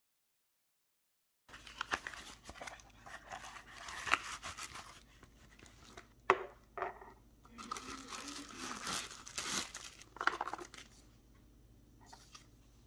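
Clear plastic wrapping crinkling and rustling as it is pulled off a glass oil sprayer bottle, with a few sharp clicks and taps. It starts about a second and a half in and dies down near the end.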